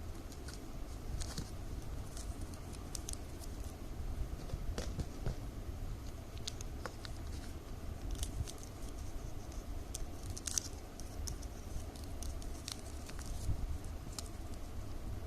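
Plastic strips cut from milk powder bags rustling and crinkling as they are folded and woven by hand, with many small irregular ticks and crackles.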